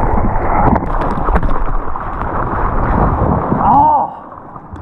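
Whitewater rushing and splashing against a GoPro at the water surface, loud and noisy, with sharp splashes. Near the end the camera dips under: bubbling gurgles, then a muffled, quieter sound.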